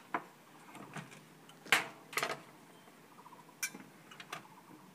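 Small clay teapots, lids and cups clinking on a metal tea tray as teaware is handled: about six short, sharp clinks, the loudest about two seconds in.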